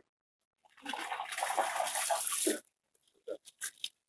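Water splashing while a yacht is washed down: a gush of about two seconds, then a few short splashes.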